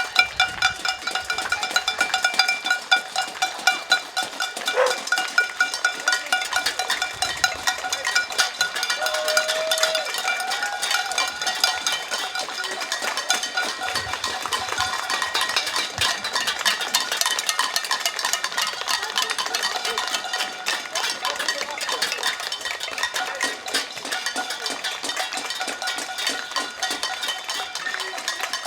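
A street of people clapping and banging metal: a dense, continuous clatter of claps and strikes, with ringing tones from struck bells or pans throughout.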